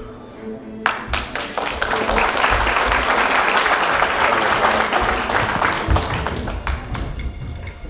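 Audience applauding, starting about a second in and dying away near the end, over background music.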